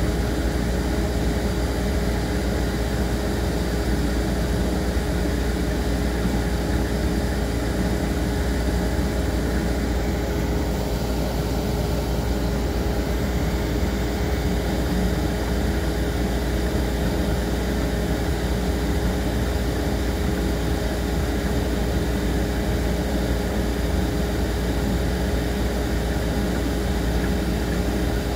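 A machine running steadily: a low hum under an even rushing noise, with a constant mid-pitched tone.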